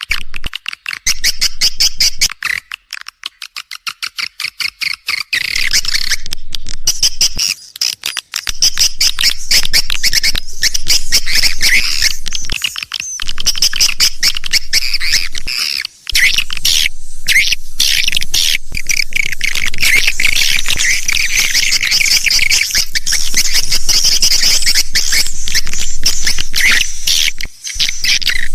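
Swiftlet lure call (suara tarik): dense, rapid twittering chirps of swiftlets, made to draw the birds into a swiftlet house. The first few seconds are a fast run of separate clicks with short gaps; after that the chirping runs almost unbroken.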